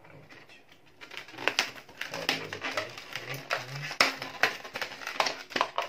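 Latex modelling balloons being twisted and locked together by hand: rubbery squeaks and creaks mixed with sharp crinkling snaps, getting busier after about a second.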